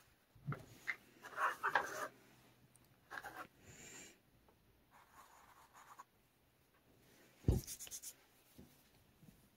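Red felt-tip marker scratching on a canvas in short colouring strokes, in several brief bursts. Later a single sharp thump, with a short scratch after it.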